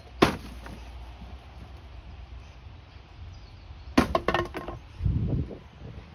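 A sharp knock as a pop-up mesh plant cover is tossed out of the shed. About four seconds in, a wooden batten lands on wooden decking and clatters, bouncing a few times with a short woody ring.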